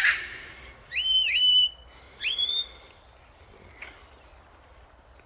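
A pet parrot calling: a harsh squawk fading at the start, then three loud whistles that each rise sharply and then hold steady, two close together about a second in and a third just after.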